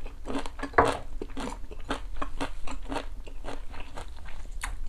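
Close-miked chewing of a crunchy napa cabbage root from kimchi stew: crisp crunches about three times a second, the loudest just under a second in.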